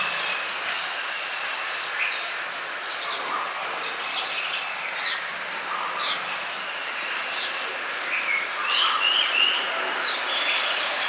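Several small birds chirping and calling over a steady background of environmental noise. From about four seconds in, one bird repeats a short high note about three times a second for a few seconds.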